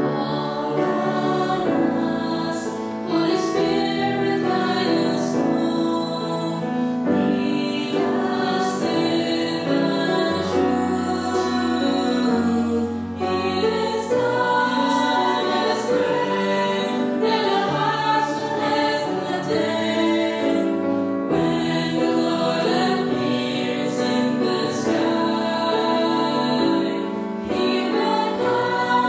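A small group of voices singing a song together into microphones, with held notes and clearly sung words.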